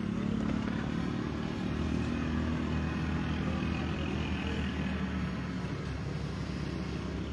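A motor vehicle's engine running steadily nearby, a low hum that holds through the whole stretch.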